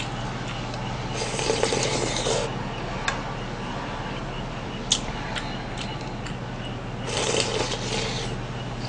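A person slurping soup broth from a spoon held at the bowl's rim: two longer slurps, about a second in and about seven seconds in, with a few light clicks of the spoon against the bowl between them. A steady low hum runs underneath.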